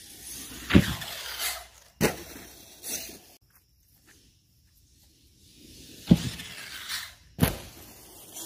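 Arrma Talion RC car driving rough ground, with four sharp knocks as it hits or lands, about a second in, at two seconds, at six seconds and at seven and a half seconds, and rough scraping noise between; nearly quiet for about two seconds in the middle.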